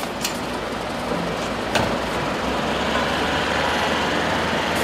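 Street traffic with a London black cab's engine idling at the kerb, a steady low rumble. A sharp click comes about two seconds in.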